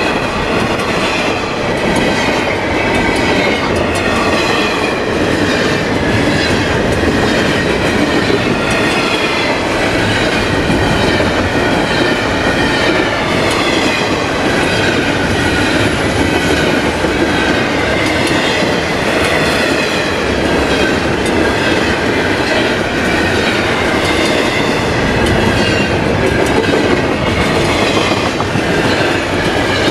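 Double-stack intermodal train of container well cars rolling past at speed: a loud, steady rush of steel wheels on rail with a rhythmic clickety-clack over the rail joints and a wavering high squeal from the wheels.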